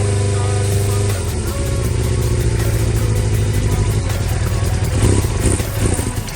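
Suzuki Bandit 400's inline-four engine running with its freshly rebuilt carburetors. A steady hum gives way about a second in to a rougher, more uneven note, with a few surges in engine speed near the end.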